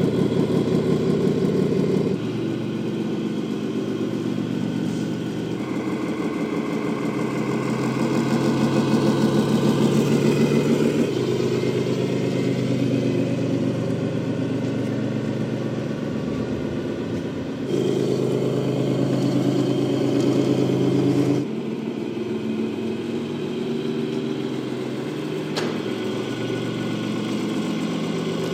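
Electronic sound module of a 1/14-scale Tamiya Scania RC truck playing a simulated diesel truck engine through its speaker, its engine speed and loudness changing in abrupt steps several times as the truck is driven.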